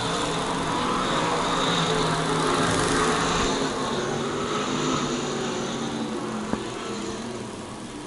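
A pack of dirt-track stock cars' V8 engines racing at speed, several engines running at once, growing louder to a peak a couple of seconds in and then slowly fading as the field goes by.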